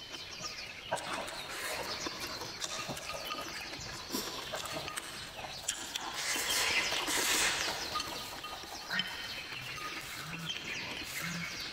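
Close-up eating sounds of thick Jiangxi rice noodles: wet chewing and lip smacking, with a long slurp of noodles about six seconds in that is the loudest part. Light clicks of wooden chopsticks against the plate come in between.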